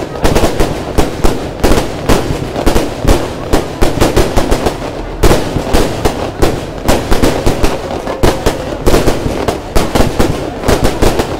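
Fireworks going off in a rapid, irregular barrage of sharp bangs and crackles, several a second without let-up.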